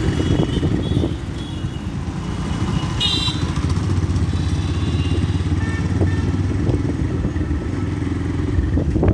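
Yamaha FZ-S motorcycle's single-cylinder engine running steadily while riding, with a brief high-pitched sound about three seconds in.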